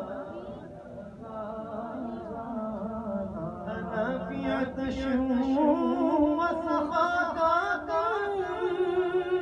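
A man singing a naat (Urdu devotional poem) solo and unaccompanied, with long, ornamented held notes; the melody climbs higher about halfway through.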